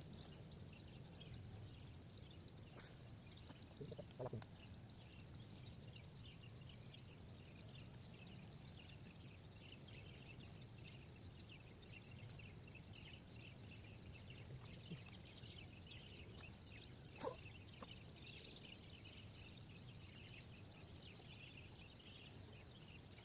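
Quiet outdoor ambience: a steady high insect drone with faint continuous chirping over a low rumble, and a couple of brief soft knocks, one about four seconds in and one about seventeen seconds in.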